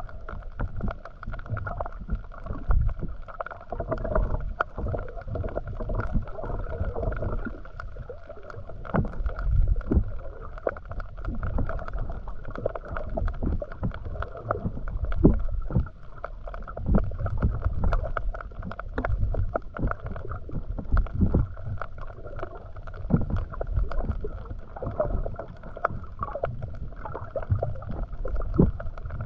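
Underwater sound through an action camera held below the surface: muffled rumbling water movement from a swimmer, with scattered clicks and a steady faint hum underneath.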